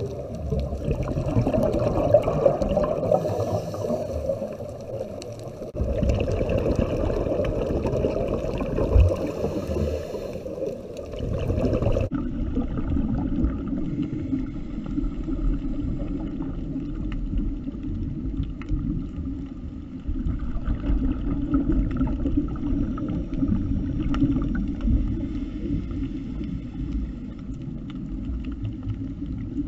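Muffled underwater rumble and bubbling heard through an action camera's waterproof housing, swelling and fading every few seconds, typical of a scuba diver's regulator breathing and exhaled bubbles. The sound changes abruptly about twelve seconds in, at a cut between clips.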